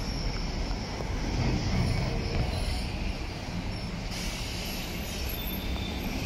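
City street traffic: vans driving past close by, and an electric tram rolling through the junction on curved track. Faint high squeals from the tram's wheels come near the start and again about four seconds in.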